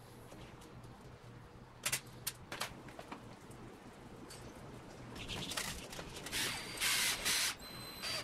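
Clicks and small handling noises from wires and parts, then near the end a handheld power tool running in a few short hissing blasts, with a steady high whine at the very end.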